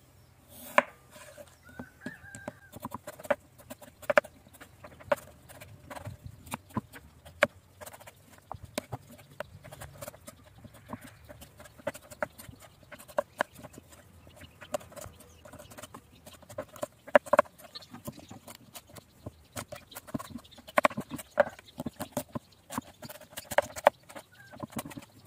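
Kitchen knife chopping raw potatoes and then carrots into small cubes on a wooden cutting board: irregular knocks of the blade on the board, coming in quick runs.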